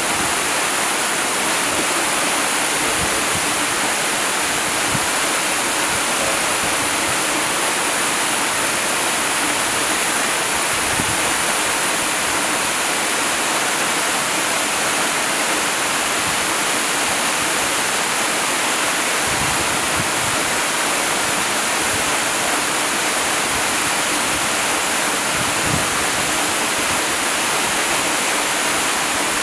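Waterfall: a steady, even rush of falling water with a bright hiss on top, unchanging throughout.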